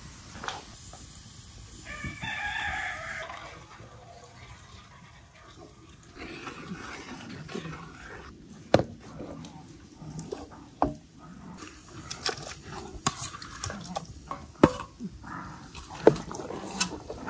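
A rooster crows once, about two seconds in. Later come sharp, irregular knocks of a wooden spoon against a metal cooking pot as syrup and figs are stirred.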